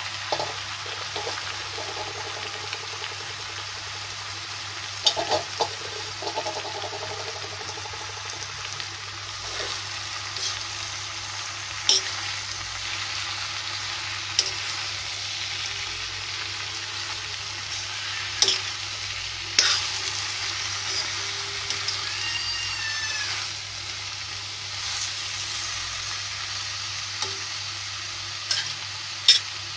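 Pumpkin pieces sizzling steadily in hot ghee in a kadhai while being stirred, with a few sharp knocks of the spatula against the pan.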